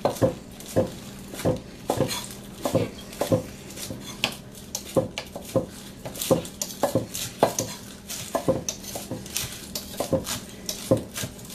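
Kitchen knife slicing through rolled chard leaves and knocking on a cutting board: a run of sharp, irregular chops at roughly two a second.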